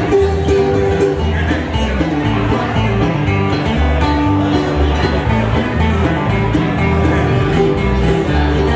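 Live bluegrass band playing: upright bass, mandolin, acoustic guitar and banjo, with the bass pulsing steadily under the plucked strings.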